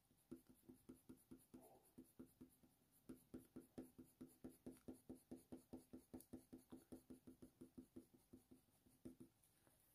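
Faber-Castell Polychromos coloured pencil scratching on hot press watercolour paper in short, quick shading strokes, about four a second, faint.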